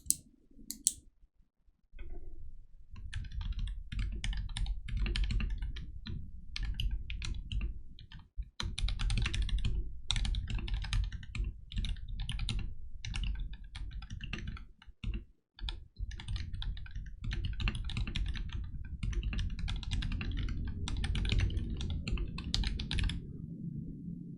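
Steady typing on a Tecware B68 mechanical keyboard fitted with lubed and filmed Gateron Black linear switches, PBT keycaps and foam-dampened case. It runs as quick strings of keystrokes with brief pauses, after two sharp clicks at the very start.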